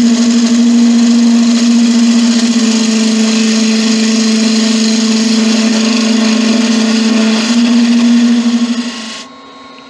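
Laguna wood lathe spinning a spalted beech vase blank while a turning tool cuts the wood: a steady motor hum under the hiss of the tool peeling shavings. The sound drops away abruptly about nine seconds in.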